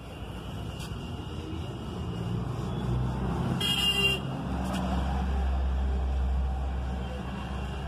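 Road traffic noise: a steady low rumble of passing vehicles that grows louder in the second half, with a short vehicle horn toot about halfway through.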